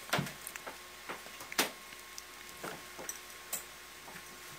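Scattered light clicks and taps of handling, about eight in all, the loudest just after the start and about a second and a half in.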